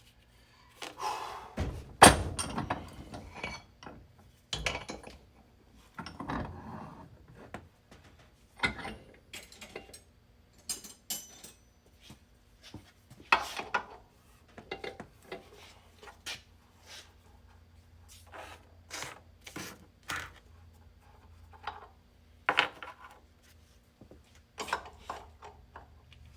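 Tools and parts being handled during hands-on repair work: a run of irregular knocks, clicks and clunks, the loudest thump about two seconds in.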